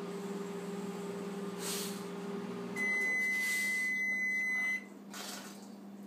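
One long, steady, high electronic beep lasting about two seconds, starting about three seconds in, like a household appliance signalling. Before it a low appliance hum runs and partly drops away as the beep starts. There are also two soft breathy puffs, one around two seconds in and one near the end.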